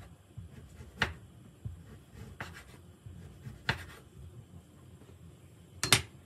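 Chef's knife slicing chorizo on a wooden cutting board: a knock of the blade against the board roughly every second or so, with a louder double knock near the end.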